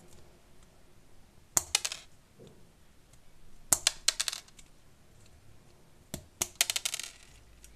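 Scissors snipping off the excess wire leads of diodes and a capacitor on a hand-built bridge rectifier: three quick clusters of sharp metallic clicks, about two seconds apart.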